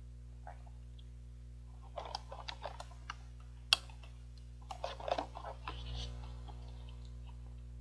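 Close-up sounds of milk being sucked up through a straw and swallowed, in two short bursts of slurps and gulps with a single sharp click between them, over a steady low hum.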